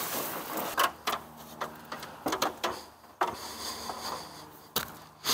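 Footsteps and scuffing on an asphalt shingle roof, with irregular knocks and scrapes and a sharp knock near the end.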